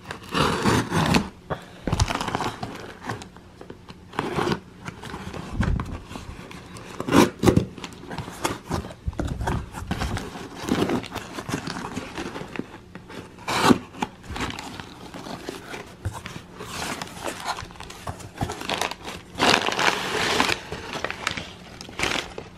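A box cutter slicing through packing tape on a cardboard box, then the flaps being pulled open and crumpled paper packing rustling and crinkling as hands dig through it, in irregular bursts with sharp scrapes.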